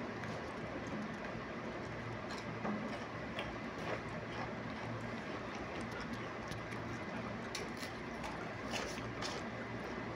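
Steady low room hum with a few faint, irregular clicks and taps as fruit is handled on a glass tabletop and a banana is peeled.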